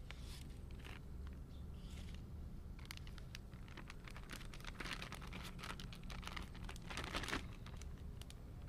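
Thin plastic zipper bag crinkling and rustling as raw chicken leg quarters are pushed into it, in short crackly bursts, busiest from about three seconds in until just after seven.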